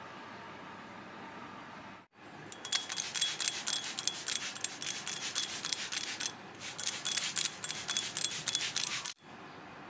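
Glass plant mister with a metal pump top worked in quick repeated strokes, each a short spritz of spray, in two runs with a brief break about six seconds in.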